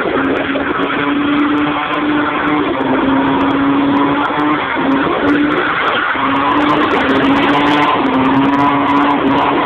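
Ford Falcon BA XT's naturally aspirated straight-six held at high revs through a burnout, its note steady with several brief dips, over the continuous squeal and rush of spinning tyres.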